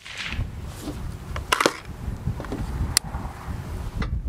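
Rifle and gear being handled on a wooden shooting bench: a few sharp clicks and knocks about a second and a half in, and one more sharp click about three seconds in, over a low wind rumble on the microphone.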